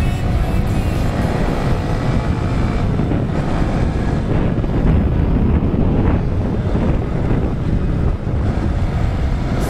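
Small dual-sport motorcycle engine running steadily at cruising speed, mixed with heavy wind rush on the microphone.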